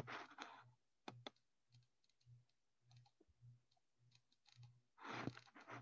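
Near silence with a few faint computer mouse clicks, two of them close together about a second in.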